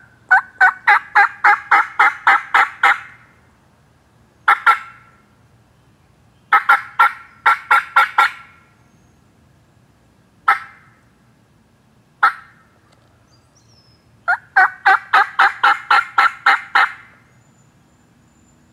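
Turkey yelping: three runs of eight to ten sharp yelps, about three a second, with a short pair and two single clucks in the gaps between them.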